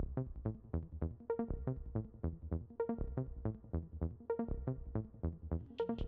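Electronic background music with a steady beat, starting abruptly. A higher, hissing layer joins near the end.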